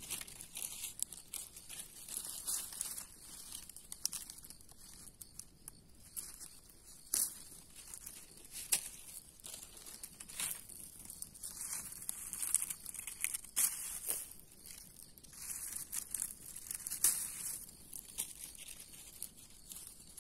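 Fan palm fronds being cut at the base with a knife and pulled away: dry crackling, tearing and rustling of the fibrous leaves, with irregular sharp snaps.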